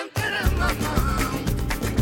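Catalan rumba music. A sung line ends, and just after the start the full band comes in with a deep bass and a quick, steady strummed and percussive beat.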